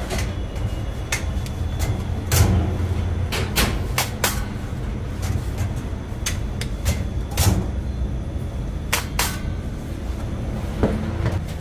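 Bakery work noise: a steady low hum with a dozen or more sharp knocks and clacks at irregular intervals.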